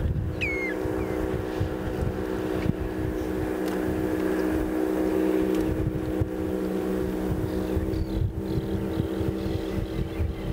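An engine running steadily at an even pitch, with gusts of wind buffeting the microphone. A short, falling bird call comes about half a second in.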